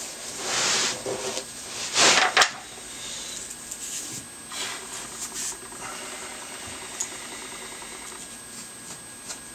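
A small hand carving tool scraping and shaving pumpkin flesh in short, light strokes. Two louder rustling scrapes come in the first couple of seconds, the loudest about two seconds in.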